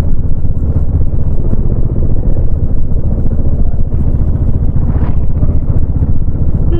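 Royal Enfield Bullet 350's single-cylinder four-stroke engine running steadily on the move, a low, fast exhaust thump heard from the rider's seat.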